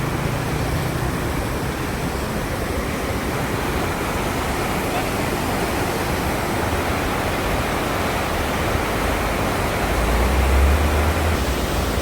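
Steady rushing of a mountain waterfall, a constant full roar of falling water, with a brief low rumble swelling about ten seconds in.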